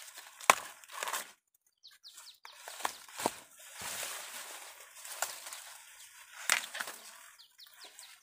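Corn plants rustling and crackling as someone pushes through them, leaves scraping and stalks snapping. There are several sharp snaps; the loudest comes about half a second in, with others near three and a quarter, five and six and a half seconds.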